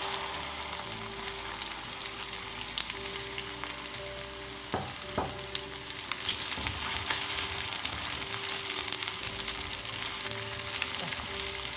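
Sliced okra frying in hot coconut oil in a wok: a steady sizzle full of fine crackles.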